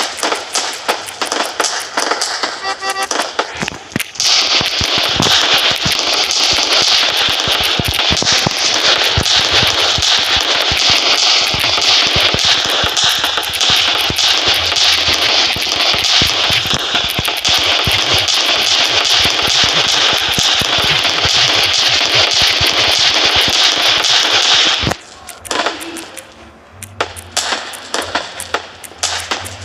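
Fireworks going off in a dense, rapid crackling barrage of pops, thickening about four seconds in into a continuous crackle, then dropping away suddenly near the end to scattered pops.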